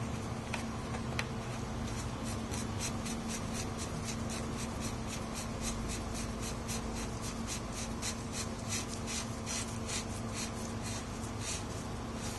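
SRAM GXP bottom bracket cup being turned by a gloved hand into a greased, English-threaded bottom bracket shell: a scratchy rubbing repeated about three or four times a second, starting about two seconds in.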